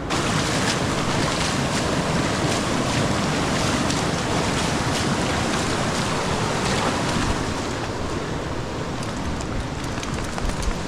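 Rushing water of a fast mountain creek, a loud steady hiss.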